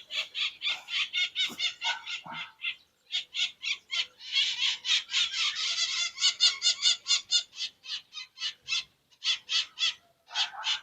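A bird calling in a fast run of short, high, harsh repeated notes, about five a second, breaking off briefly a few times.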